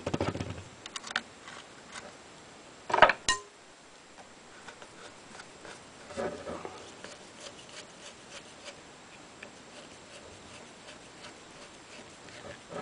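Handling noise of small tools and shotgun parts on a workbench: scattered light clicks and taps, with a brief clatter of sharp knocks about three seconds in and a smaller one around six seconds.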